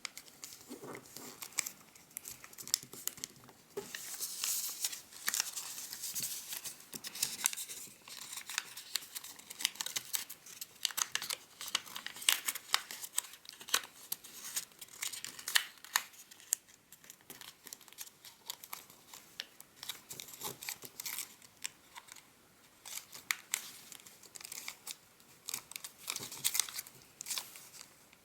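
Square of origami paper crinkling and crackling in irregular short crackles as it is opened out and squash-folded along pre-made creases.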